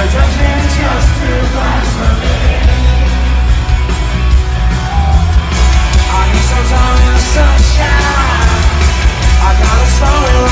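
Loud rock music over a concert PA, with heavy bass, heard from within the crowd while audience members yell and cheer.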